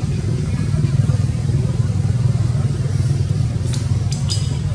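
A steady low engine drone, like a motor vehicle running, with a few short sharp clicks near the end.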